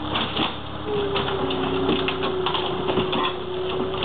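Gehl skid-steer loader running while its grapple tears into a wood-frame cottage: wood cracking and splintering and debris clattering down in many sharp snaps over the loader's engine. A steady whine from the loader comes in about a second in.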